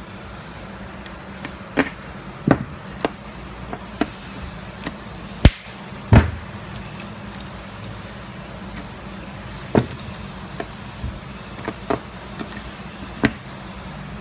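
Irregular sharp knocks and clicks, about a dozen, the loudest two about five to six seconds in, from parts and tools being handled while the ride-height clip on a Bilstein 6112 shock body is shifted to its top setting. A steady low hum runs underneath.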